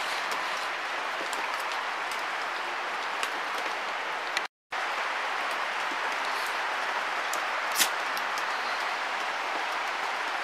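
Steady background hiss with a few faint ticks. It drops out to silence for a moment just before halfway.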